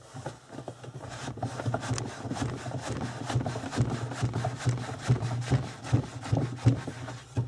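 Homemade wooden hide-breaking tool (myalka) worked by hand: the toothed wooden lever is pumped up and down in its slot, giving rapid, irregular wooden knocking and rubbing as a tanned goatskin is worked through the teeth to soften it.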